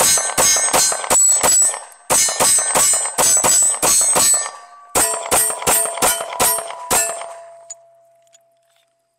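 Live Free Armory AMP 9mm pistol fired rapidly in three quick strings, about four shots a second, with short pauses about two and five seconds in. The pistol cycles without a hang-up. A metallic ringing carries between the shots and fades out over about two seconds after the last one.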